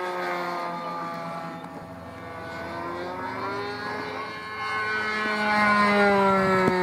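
O.S. 65LA two-stroke glow engine of a Bridi UFO radio-controlled airplane running in flight. Its pitch falls as the plane passes, rises again, then grows loudest and drops in pitch on a closer pass near the end.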